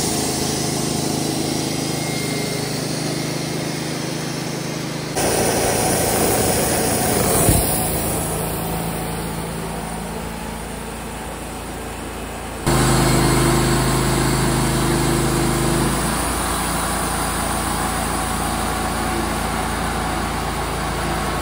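Wood-Mizer LT35 portable bandsaw mill running, its engine and band blade sawing a southern yellow pine cant into boards. The steady engine note jumps abruptly in level twice, about five seconds in and again past halfway.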